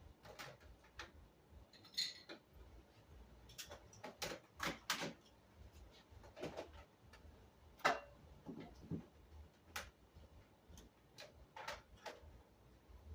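Scattered light clicks and knocks of small objects being handled and set down, at irregular spacing, with one sharper knock about eight seconds in.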